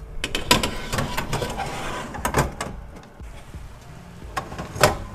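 Metal baking tray scraping along the oven's rack rails as it slides in and out, with several sharp clanks. The loudest clank comes near the end.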